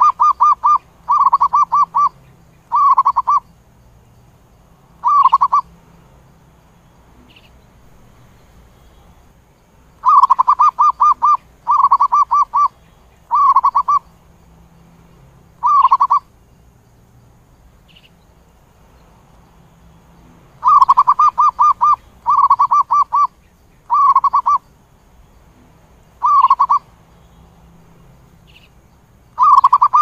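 Zebra dove calling: rapid stuttering coos, each a quick trill of notes, given in phrases of about four that repeat roughly every ten seconds.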